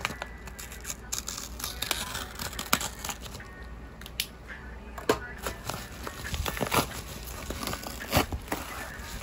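Yellow padded paper mailer being torn open and handled: paper tearing and crinkling in a string of sharp crackly strokes.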